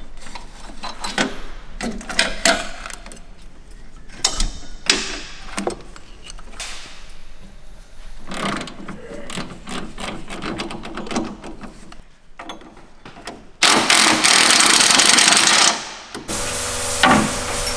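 Hand tools clinking and ratcheting against a steel tube chassis in a run of sharp clicks and knocks, then a cordless impact wrench running hard for about two seconds near the end, followed by a steadier hum.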